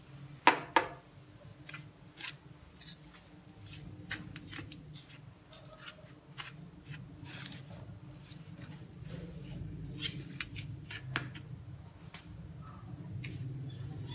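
Steel spoon scraping and clicking against a steel plate while mixing ground fenugreek powder with milk, with two sharp taps about half a second in. A steady low hum runs underneath.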